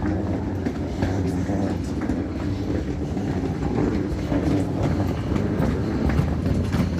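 Suitcase wheels rolling over stone paving: a steady rumble with faint irregular clicks.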